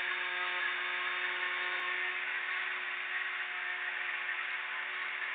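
Small metal lathe running steadily while machining a casting pattern: an even motor whir with a few steady hum tones under it.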